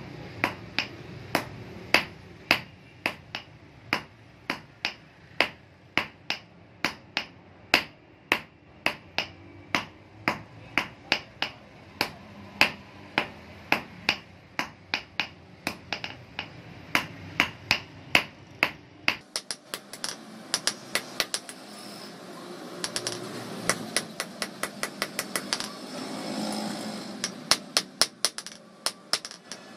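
A hand hammer beats a hammer head on a steel anvil in a steady rhythm of about two sharp, ringing metal blows a second: forging the head hot. About two-thirds of the way in, the blows turn slightly quicker and brighter over a faint hiss.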